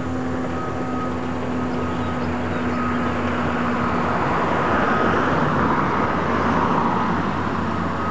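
A car driving past on the street, its tyre and engine noise swelling from about four seconds in and peaking shortly after, over a steady low hum that dies away about halfway through.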